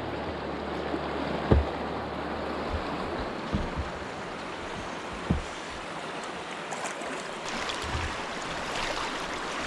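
Steady rush of a flood-swollen river's current, with a few low thumps about one and a half, three and a half and five seconds in.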